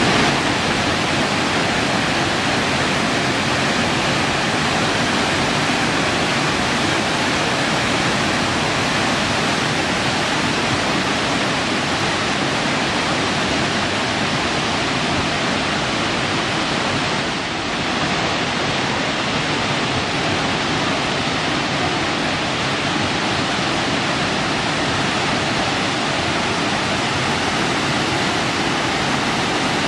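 Burney Falls waterfall pouring into its plunge pool: a steady, even rush of falling water.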